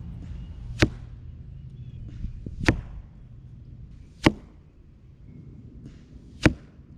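Four shots from a PSE Mach 33 compound bow, each a single sharp crack, roughly two seconds apart, over low wind rumble on the microphone.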